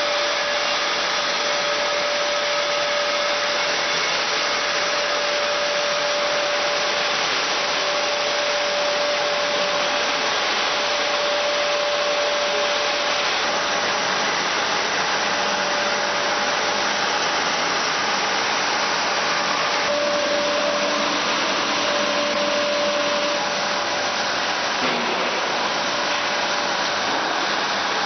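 Automated wood-processing machine for slats running steadily: an even whooshing whir of motors and dust extraction with a thin steady whine that drops out for a few seconds in the middle.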